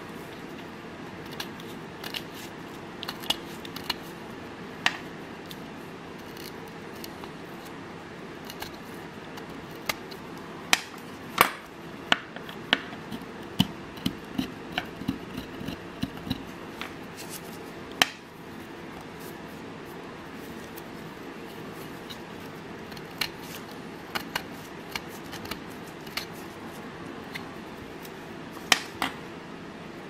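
A metal multi-tool being handled: sharp metallic clicks and snaps as its tools are worked, a few at first, then a quick run of them in the middle and a few more near the end, over a steady low hum.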